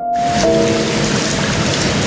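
Steady rain falling, with soft music laid over it: a single held note, then a new sustained chord about half a second in.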